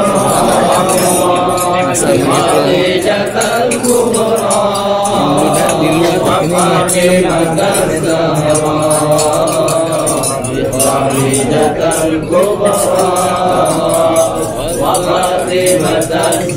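A group of men's voices chanting together in a continuous sung recitation.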